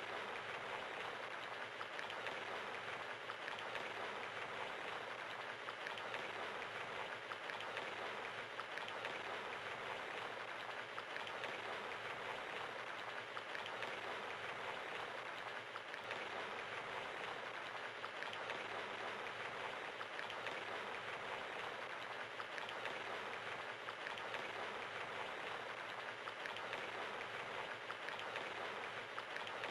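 Steady rain pattering, an even hiss of drops with no thunder.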